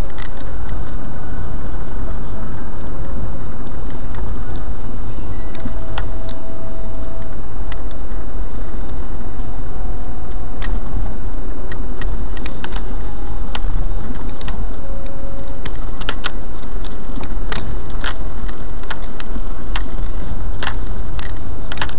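A car driving: a steady low drone of engine and road noise, with scattered sharp clicks throughout.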